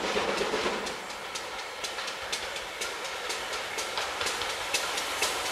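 Steam locomotive hauling a passenger train approaching round a bend, heard as a steady hiss with a sharp regular beat about twice a second.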